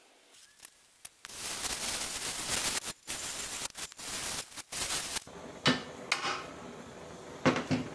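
Oxy-acetylene cutting torch hissing loudly as it cuts a round hole through rectangular steel tube, starting about a second in. After about five seconds the hiss is quieter, and a hammer strikes the steel tube a few times with sharp, ringing knocks.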